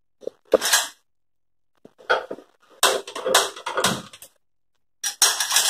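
Short metal clatters and knocks from a small steel saucepan being handled on a gas stove burner, heard as several separate bursts, about half a second each, with a cluster of them in the middle.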